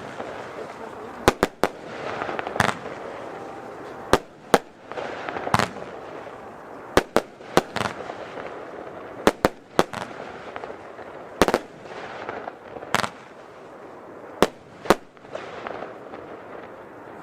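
Nico Hades F2 firework battery firing, with about seventeen sharp bangs at irregular spacing, some in quick runs of two or three. Hissing and crackling fill the gaps between them.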